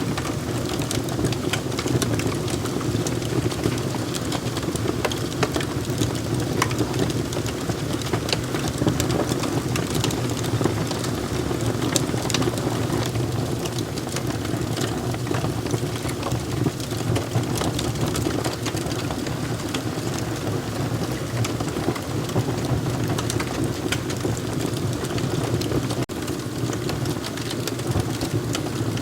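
Wood fire crackling: a steady low rush of burning with frequent sharp pops and snaps scattered throughout.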